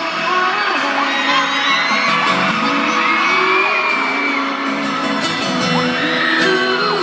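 Arena concert crowd screaming and whooping over live music: the band holds a sustained instrumental passage while high shrieks from fans rise and fall on top.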